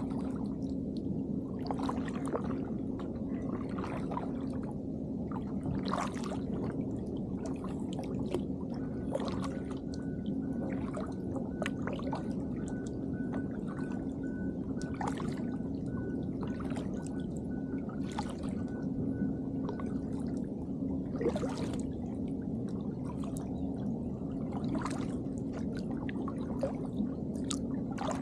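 Double-bladed kayak paddle dipping and pulling through calm water, splashing and dripping every second or two, over a steady low hum.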